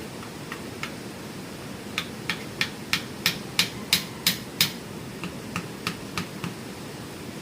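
A run of sharp knocks, about three a second, like a hand tool striking wood: a few light ones, then a louder volley in the middle, a short pause, and softer ones near the end. Under them is a steady hiss of rain.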